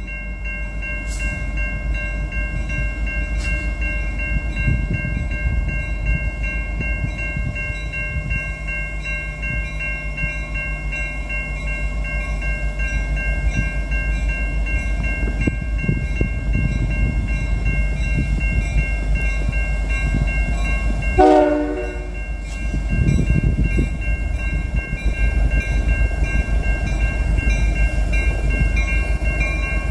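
Approaching freight train led by an EMD SD75I diesel locomotive: a steady diesel rumble with the locomotive bell ringing throughout. About 21 seconds in, one short blast of its Nathan K3L air horn, warbling a bit, after which the engine rumble swells as the trailing GE ES44DC throttles up.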